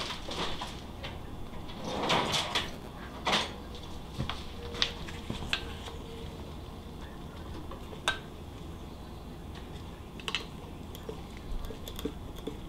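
Irregular metal clicks and clanks of a pry tool working at a metal cover on a Porsche 912 engine to break it free of its gasket, busiest about two to three and a half seconds in.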